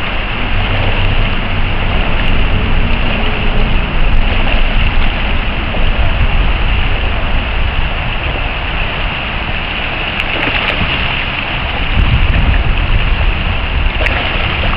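Shallow river water rushing over rocks in a riffle, a steady hiss, with low wind rumble on the microphone that grows louder about twelve seconds in.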